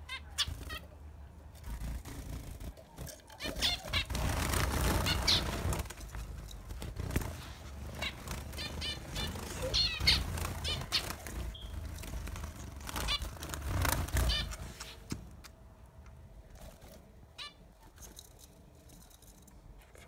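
Zebra finches fluttering around a wire cage, their wings flapping in irregular bursts, loudest in the first part and dying down toward the end.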